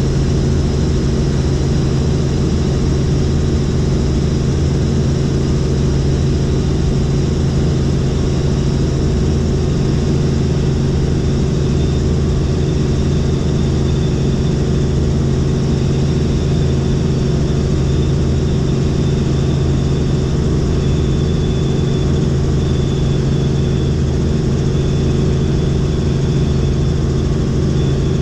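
Helicopter in steady flight heard from inside the cabin: a constant low drone of engine and rotor, unchanging in pitch and level.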